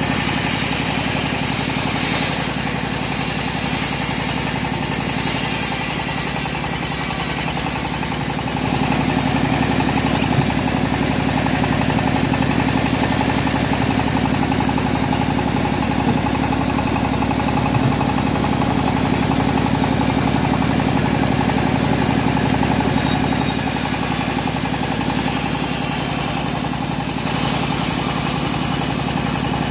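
Homemade engine-driven bandsaw sawmill running steadily, getting louder about eight seconds in and easing back near the end.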